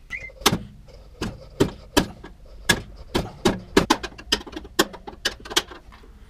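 Screwdriver knocking out an electrical knockout in the Fahrenheat FUH54 heater's sheet-metal wiring compartment: a rapid, irregular series of sharp taps and knocks, about two a second.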